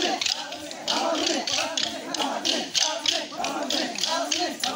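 Tonya Khel dance sticks clacking together in a steady rhythm of about four strikes a second, with a group of voices chanting along.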